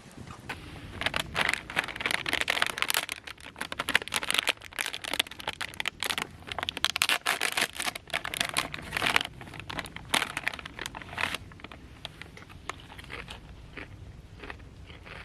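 Dense crinkling and crunching, a rapid run of sharp clicks that thins out and fades about eleven seconds in.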